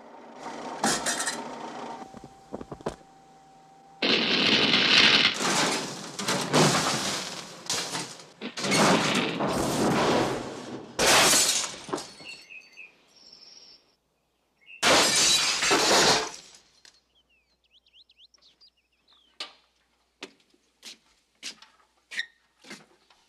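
A kitchen wrecked in a film's sound effects: a run of loud crashes and breaking, shattering glass over several seconds, with another crash a few seconds later. Scattered small clinks and clicks follow near the end.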